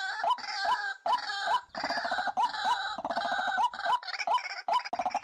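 A bird calling over and over in quick short notes, each one hooking upward in pitch, about two to three a second, with sharp clicks among them.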